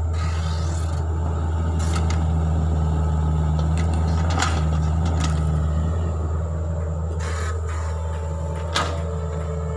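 2014 Hitachi Zaxis 48U mini excavator's diesel engine running steadily under load, with a faint hydraulic whine as it digs and swings its boom. A few sharp clicks and knocks come through, the loudest near the end.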